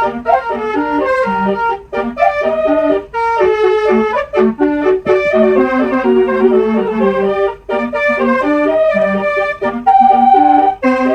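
Bus basuri (telolet) musical air horn playing a continuous tune, one short reedy note after another several times a second.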